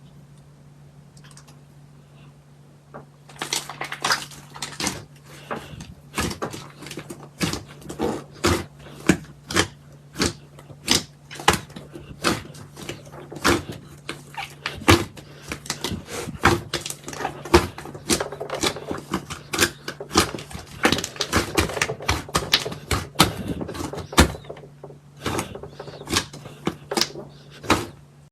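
Slime being squeezed and poked, giving rapid sharp clicks and pops, over a steady low hum. The clicking starts about three seconds in and thins out near the end.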